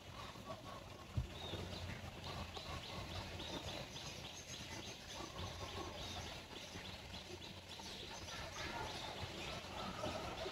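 Outdoor garden ambience: many faint, short animal chirps over a low rumble, with one sharp knock about a second in.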